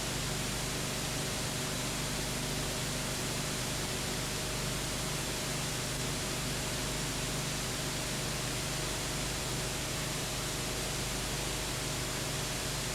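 Steady hiss with a faint low hum and no other sound: the empty sound track of a silent cine film transferred to video.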